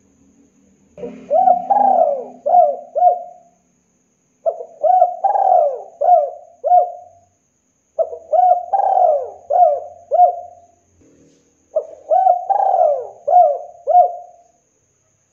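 Spotted dove cooing. Its song comes four times a few seconds apart, each phrase a quick run of about five rising-and-falling coos.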